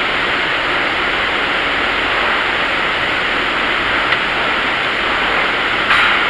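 Steady rushing background noise in a welding shop, even in level throughout, with a light click about four seconds in and a short knock near the end as the rebar form is handled.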